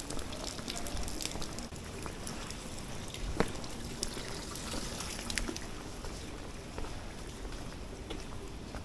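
Steady rain falling on a wet cobblestone street, with scattered drops tapping close by and a single sharp click about three and a half seconds in.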